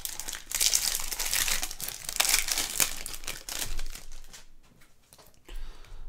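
Clear plastic wrapper of a trading-card pack crinkling as the stack of cards is pulled out of it. The dense crackling dies away about four seconds in.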